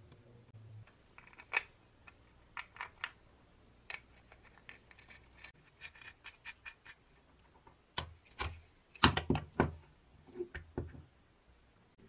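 Metal fittings and the wooden base board of a hand-crank coffee grinder being handled and set down during reassembly: a scattered run of sharp clicks, with a louder cluster of knocks about nine seconds in.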